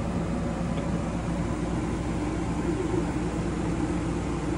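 Steady hum and rush of an RV's rooftop air conditioner running.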